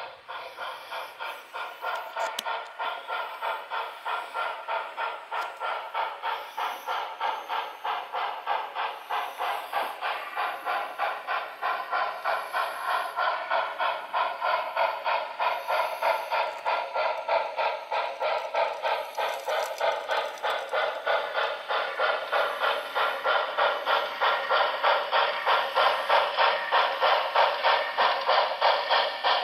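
Sound-equipped model steam locomotive's decoder chuffing in an even rhythm of roughly two to three beats a second, played through the locomotive's small onboard speaker. The chuffing grows louder as the engine draws near.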